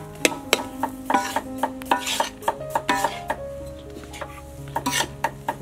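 Metal spoon stirring and scraping a dry crumbly mixture in a metal pan, with frequent sharp clinks of the spoon against the pan and a couple of short scraping hisses, over soft background music.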